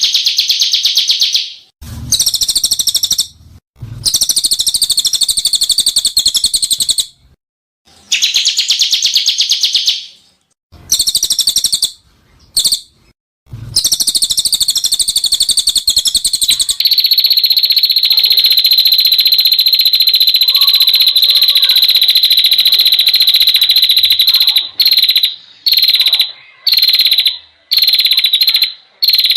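Harsh, rapidly pulsed high trills from a bird-training (masteran) recording: phrases a second or two long with short gaps, then one long unbroken high trill for several seconds that breaks up into short bursts near the end.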